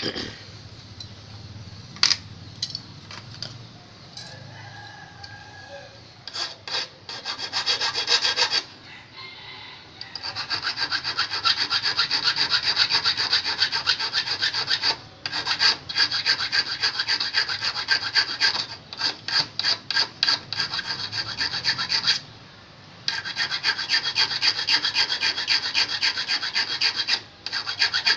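Small flat hand file rasping back and forth on a steel fish hook held in pliers, filing down its point and barb. It starts with a few scattered strokes, then settles into a fast, steady run of strokes with a short pause near the end.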